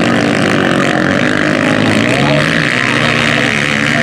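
Motocross dirt bike engines revving as the bikes race through mud, the engine pitch rising and falling with the throttle.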